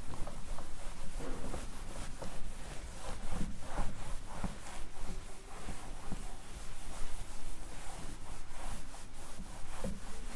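Whiteboard being wiped clean with a handheld eraser: quick, repeated rubbing strokes of the eraser pad across the board's surface.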